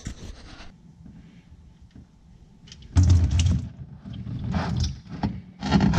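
Engine oil starting to drain from the sump into a plastic drain pan as the drain plug comes out, with the pan shifted under the stream: a few short bursts of splashing and scraping, the first about three seconds in.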